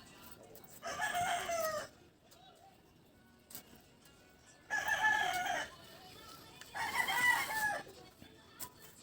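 A rooster crowing three times, each crow about a second long, the first about a second in and the last two close together after the middle.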